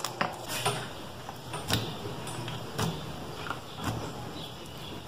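Thick slime being squeezed and pressed flat by hands, squishing with irregular sharp pops and clicks, about one every second.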